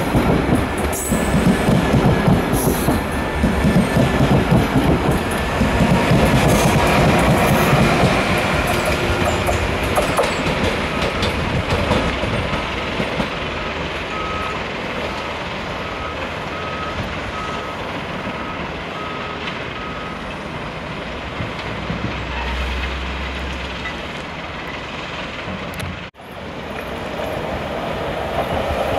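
SNCB M6 double-deck train pulling away, its wheels clattering and rumbling over the track, fading over the first several seconds. Partway through, a row of about a dozen evenly spaced high beeps sounds. Near the end, a second train approaches and the sound grows louder again.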